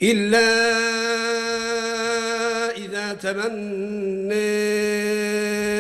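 A man's voice reciting the Quran in melodic tajweed style, drawing out a vowel as one long, steady note for nearly three seconds. After a brief melodic turn, a second long note is held at the same pitch near the end.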